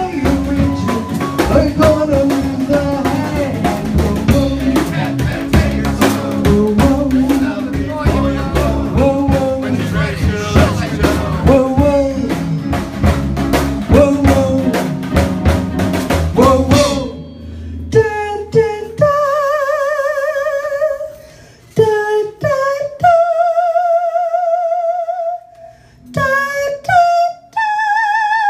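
Small swing band rehearsing without horns: drum kit, archtop electric guitar and singing play together until the band stops abruptly about 17 seconds in. Then a woman sings alone, holding long notes with a wide vibrato and short breaks between phrases.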